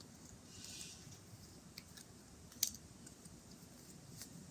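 Faint handling sounds of small prop coins (Harry Potter galleons) being shown: a brief soft rustle about half a second in, a few light ticks, and one sharp click a little past halfway.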